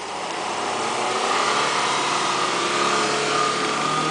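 Suzuki Vitara 4x4's engine running hard at high revs as it ploughs through deep snow, growing louder over the first second or so as it nears and passes close by, with a hiss of tyres churning snow.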